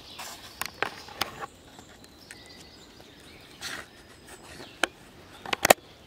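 Footsteps through dry leaf litter and fallen branches on a forest floor: scattered sharp cracks of twigs snapping underfoot, the loudest cluster near the end.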